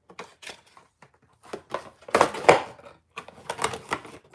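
Cardboard camera box and its paper insert being handled and the box's flap opened: irregular scrapes, taps and rustles, loudest about two seconds in.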